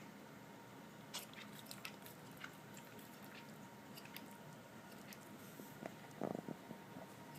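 Toy poodle's reverse sneeze dying down: scattered faint clicks, then one brief, rough reverse-sneeze inhale about six seconds in, the loudest sound.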